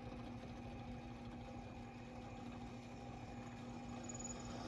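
Drill press running steadily with a constant motor hum as its bit bores through a metal plate.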